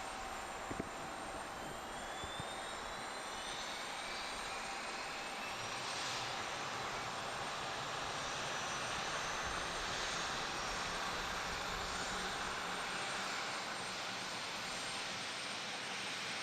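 Jet airliner's engines running as the aircraft passes: a steady rush with a thin whine that rises in pitch over the first several seconds, growing a little louder about halfway through.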